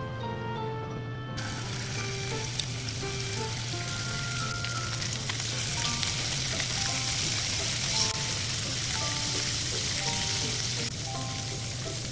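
Pieces of salmon fillet searing in a hot frying pan, a steady sizzle that starts about a second and a half in, with a couple of sharp clicks.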